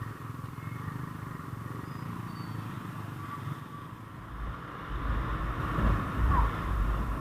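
Motorcycle running on the road, a steady engine hum with wind rumbling on the microphone that grows louder about four seconds in.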